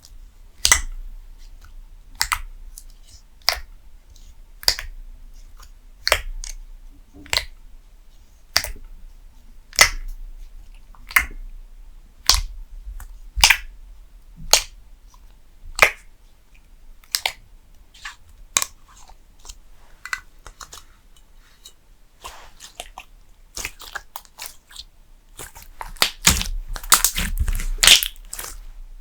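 Thick slime being worked by hand, giving a sharp pop or click about once a second, then a denser, louder run of crackling pops over the last several seconds.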